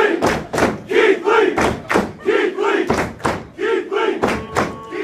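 Wrestling crowd chanting in unison, with sharp beats about three times a second keeping the rhythm.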